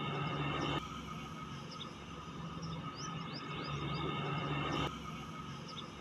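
Short, quick bird chirps over a steady hum; the background noise drops abruptly about a second in and again near the end.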